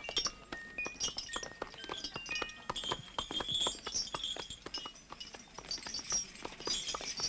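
Short, bright chime-like music notes in the first few seconds, over a busy, irregular clatter of clicks and knocks.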